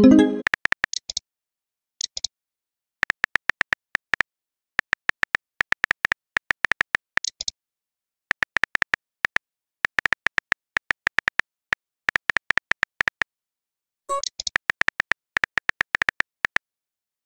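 Phone keyboard typing clicks in quick runs. A short message pop sounds right at the start and again about 14 seconds in.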